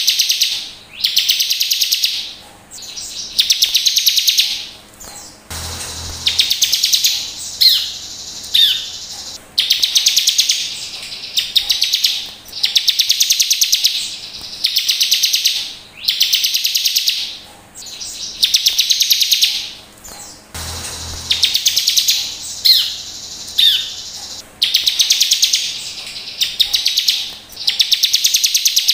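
Bar-winged prinia (ciblek) singing: bursts of rapid, sharp, high trilled notes, each about a second long, repeated every second or two.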